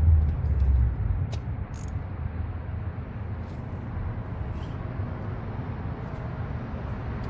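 A few faint metal clicks and taps as a socket on a long extension is worked onto a 10 mm bolt, over a steady low rumble.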